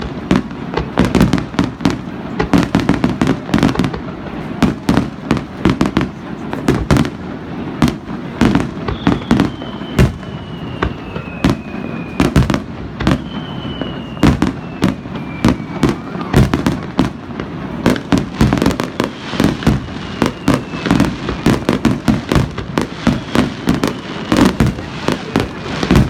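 Aerial fireworks display: a rapid, continuous barrage of shell bursts and bangs. Several long, falling whistles sound high above the bursts.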